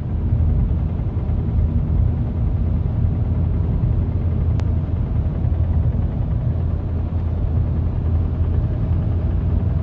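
Volkswagen Golf Mk6 running with a steady low rumble and a single sharp tick about halfway through. The car has a knock (стук), which is the noise being listened for.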